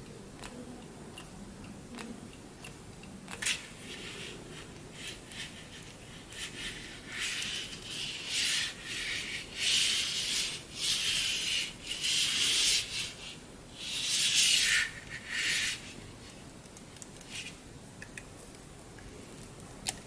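Rubbing and scraping from a cotton-gloved hand handling and moving a panel-mounted joystick with a rubber bellows boot. There is a single click early on, then a run of loud rubbing strokes from about seven to sixteen seconds in.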